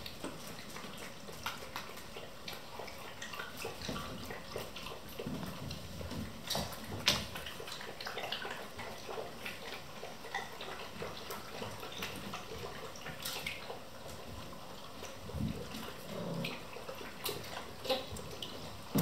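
Vizsla puppies moving about a pen: scattered light clicks and taps of claws and paws on the floor and plastic sheet, with rustling and a few soft thumps.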